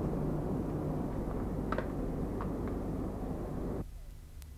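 Steady low rumbling background noise with a few faint clicks about two seconds in; it drops away suddenly shortly before the end.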